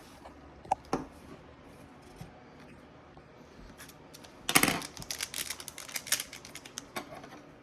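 Foil wrapper of a Pokémon card booster pack being torn open: a few light handling clicks, then about four and a half seconds in a short burst of rapid ripping and crinkling that trails off over a couple of seconds.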